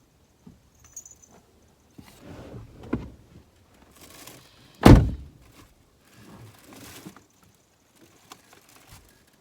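A single loud, deep thump about five seconds in, with quieter knocks and rustling before and after it.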